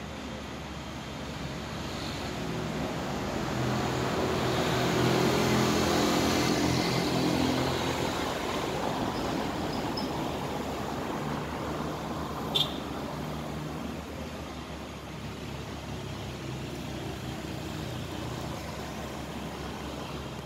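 Road traffic: a motor vehicle's engine hum swells as it passes, loudest about five to seven seconds in, then fades back to a steady low engine hum. A single sharp click comes about twelve seconds in.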